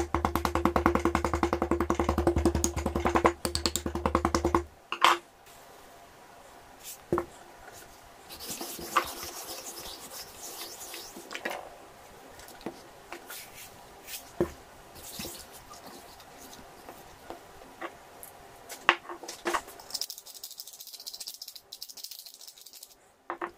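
Background music with a steady beat that cuts off about five seconds in. After that come quiet handling sounds of raw pork belly being turned and rubbed in a ceramic baking dish: scattered light taps and knocks, and two stretches of rustling hiss.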